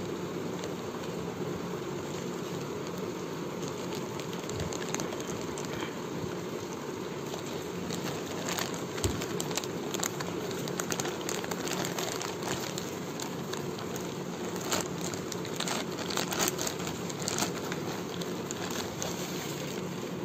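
Clear plastic polybag around a folded T-shirt crinkling as it is handled, in scattered crackles that come mostly through the middle and later part. A steady background hum runs under it.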